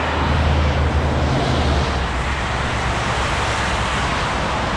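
Car on the move, heard from inside the cabin: a steady low engine and road drone under a loud, even rushing hiss of tyres and air.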